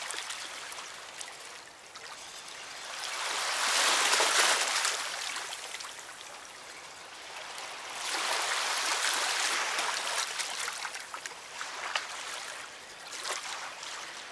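River water rushing and lapping, a steady wash that swells loudest about four seconds in and again from about eight to eleven seconds in.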